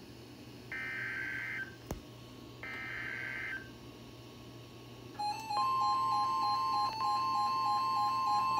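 NOAA Weather Radio emergency alert coding for a severe thunderstorm warning: the last two of the three warbling SAME data-header bursts, each about a second long, that encode the warning. About five seconds in, the steady 1050 Hz warning alarm tone starts, alongside the receivers' own pulsing alert beeps.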